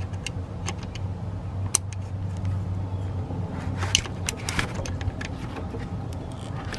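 Scattered light metallic clicks and taps of a long thin screwdriver prying at a plastic wiring connector on an alternator, over a steady low hum.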